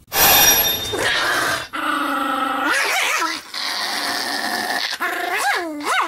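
Pomeranian barking continuously: a harsh, noisy first second or so, then long drawn-out barks held on one pitch, several ending in a quick upward sweep in pitch.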